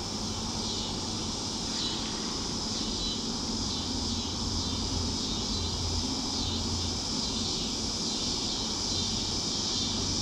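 Steady chorus of insects shrilling, with a faint low rumble underneath.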